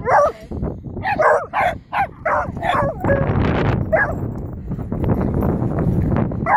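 A dog barking in short excited bursts: one bark at the start, a quick run of about six barks, roughly three a second, between one and three seconds in, and a last bark about four seconds in.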